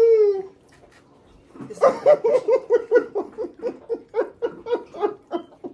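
Laughter: a long run of quick 'ha' pulses, about five a second, beginning about two seconds in. It comes after a short voiced sound at the start that rises and falls in pitch.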